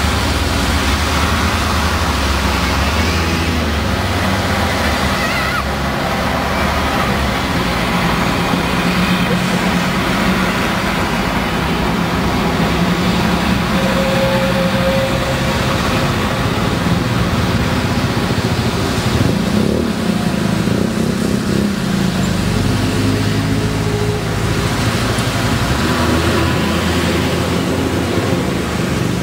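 Street traffic: diesel buses and cars passing close by, their engines running and drifting up and down in pitch as they pull away, over steady road noise.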